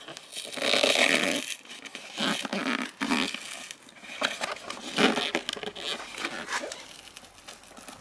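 Fingers picking and prying at the glued flap of a cardboard box: irregular scraping, rubbing and crackling of cardboard, loudest about half a second to a second and a half in.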